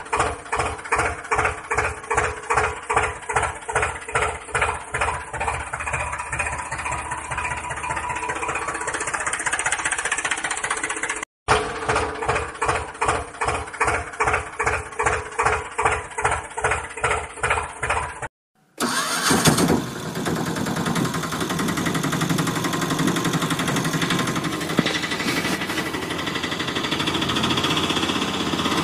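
Tractor engine sound chugging in an even beat of about two or three pulses a second, cut by two brief silences. About two-thirds of the way through it changes to a steadier, smoother engine running.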